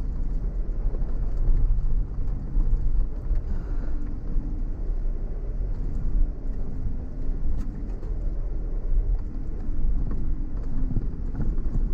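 Off-road vehicle's engine running at low speed on a rough track, with a heavy low rumble. The engine note dips and then rises again about halfway through.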